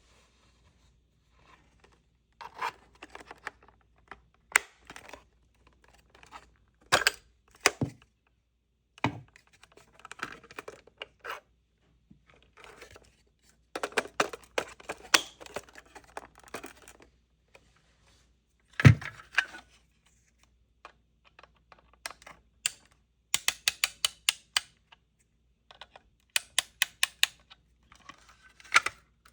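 Clicks, knocks and rattles of a smoke alarm removal tool being handled and worked, with one louder knock midway and two runs of rapid clicking near the end.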